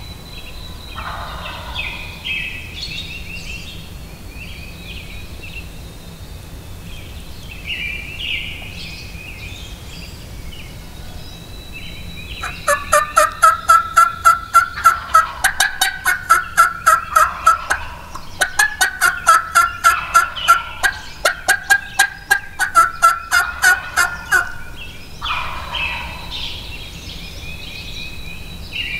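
A long run of loud, rapid turkey yelps, about three or four a second with a short break in the middle, among songbird chirps.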